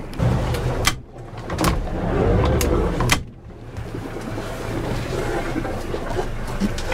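Low rumble of a boat's engine and wind buffeting the microphone on open water, broken by several sharp knocks, the first about a second in and another about three seconds in.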